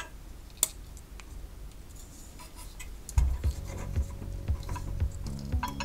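Small clicks and scratching of model parts being handled and pressed into place by hand, with one sharper click a little over half a second in. Background music comes in at about three seconds.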